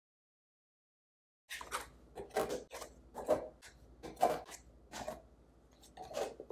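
Plastic lids being set on and pressed down onto round Anchor Hocking glass food-storage containers: a run of short clacks and rubbing scrapes, about eight in five seconds, starting about a second and a half in.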